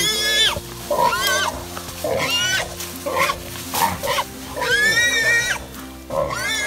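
Wild boar squealing while a catch dog holds it: about seven loud, high-pitched squeals, each rising then falling, roughly a second apart, the longest about five seconds in.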